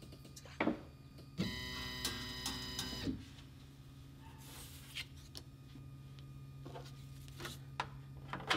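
Stepper motors of a Shapeoko CNC whine steadily for nearly two seconds as the machine jogs, with a low hum underneath. A few light handling clicks follow.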